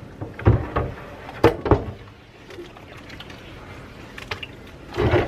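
Soapy water sloshing and splashing in a stainless steel sink as a cast iron wok is wiped and turned in it, with a few sharp knocks and splashes about half a second and a second and a half in, and another near the end.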